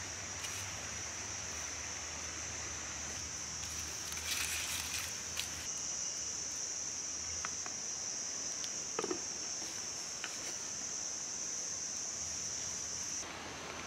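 Steady, high-pitched drone of insects that cuts off near the end, with a brief scraping about four seconds in and a few faint clicks.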